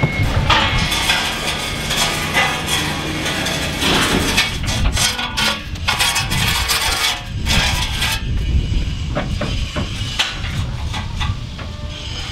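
Metal A-frame ladder stands being dragged and set up, with irregular clanks and knocks as the frames hit each other and the ground.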